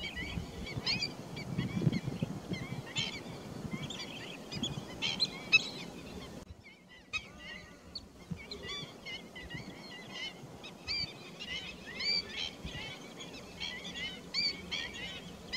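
Many short, high chirping bird calls, repeated in quick irregular runs throughout, with a brief drop-out about six and a half seconds in.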